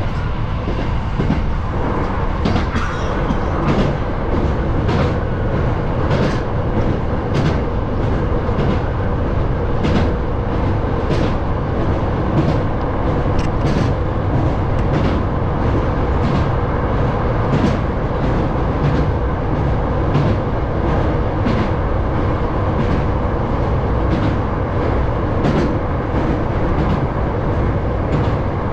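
Hankyu 7000 series electric train running at speed, heard from behind the driver's cab: a steady rumble with a faint hum and sharp wheel clicks over rail joints about once a second.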